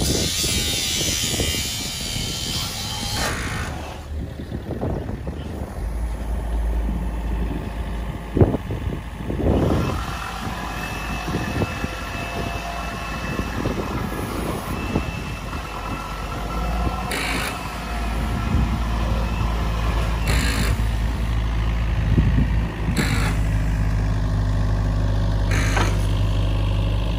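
Compact excavator's diesel engine running steadily, louder and more even in the second half as its hydraulics work an orange piling attachment on a wooden piling. A few sharp metallic clanks come in the second half.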